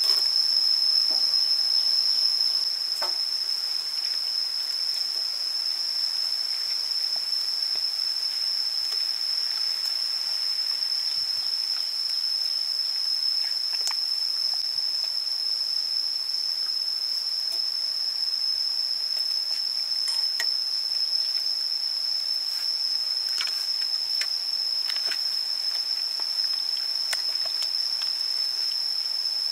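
A steady high-pitched whine, like a hiss, is the loudest sound, with a fainter higher tone above it. Now and then faint wet clicks and squelches come from hands rubbing chili marinade into a raw duck.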